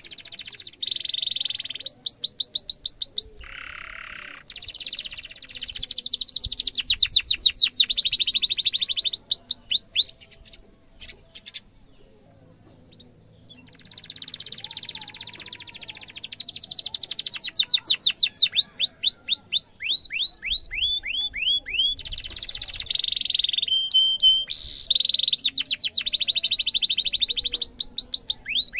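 Domestic canary singing: fast rolling trills and long runs of quick downward-sweeping chirps, with a break of a few seconds partway through.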